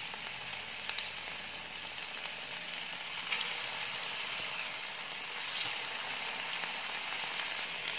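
Potato patties shallow-frying in oil in a pan: a steady sizzle with a few faint crackles.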